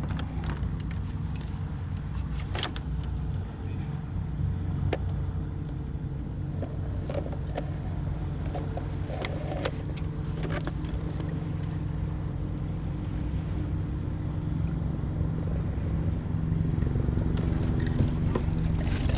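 A steady low engine drone with scattered clicks and knocks, growing louder near the end.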